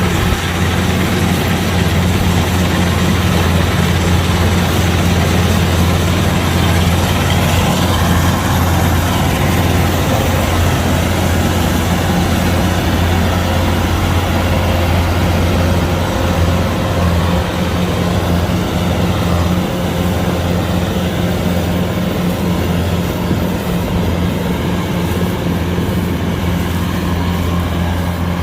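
Kubota DC-105X combine harvester's diesel engine running steadily, a loud, constant low drone.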